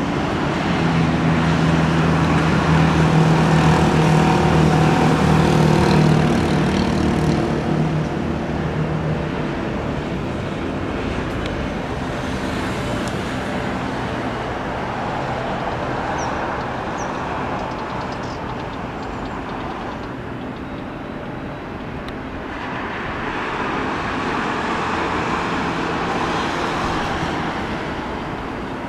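Motor vehicle engine hum with road traffic noise. The engine hum is strongest for the first several seconds and fades about eight seconds in; the traffic noise then runs on and swells again near the end.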